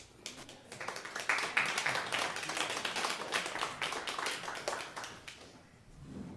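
Audience applauding after a song ends. The clapping starts just after the opening, holds steady and dies away about five seconds in.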